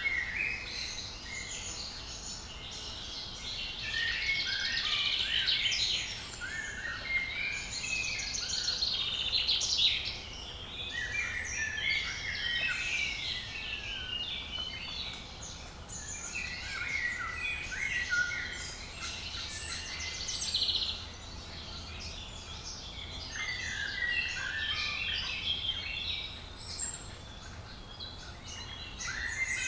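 Woodland birdsong: several birds singing and calling at once, a dense, overlapping chorus of chirps and trills.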